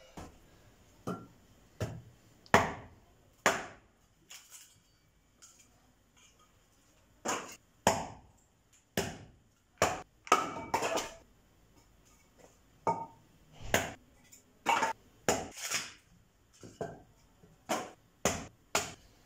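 Hatchet blows splitting kindling on a wooden chopping block: sharp, irregular chops about once a second, some in quick pairs, with a pause of a few seconds about a third of the way in.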